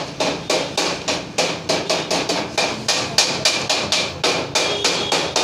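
A 10 mm socket wrench tightening a carburettor manifold bolt on a Honda Activa scooter, giving a run of sharp metal clicks, about four a second.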